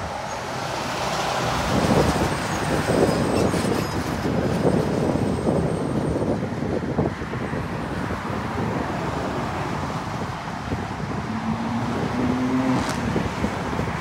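A 2002 Blue Bird International 3800 school bus drives close past, its engine and tyres swelling loudest a couple of seconds in, then fading into steady road traffic noise from passing cars and trucks.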